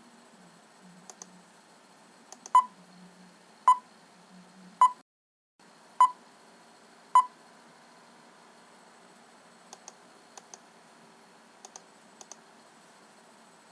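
Countdown-movie beep sound effect: five short, identical beeps about a second apart, then stopping. A few soft, faint clicks come before the beeps and after them.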